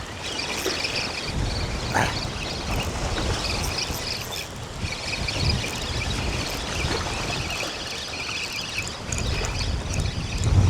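Wind buffeting the microphone in a steady low rumble, with water lapping at the shore. A faint, steady high chatter runs underneath.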